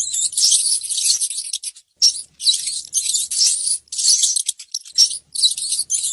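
Mouse squeaking and scratching: rapid clusters of high-pitched squeaks and scratchy rustles, broken by short pauses.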